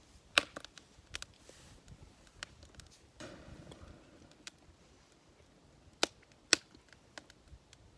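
Campfire wood crackling, with irregular sharp pops: the loudest come about half a second in and twice near the six-second mark, between many fainter snaps.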